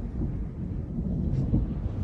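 A deep, low rumble, the kind of sound reported as a strange sound in the sky.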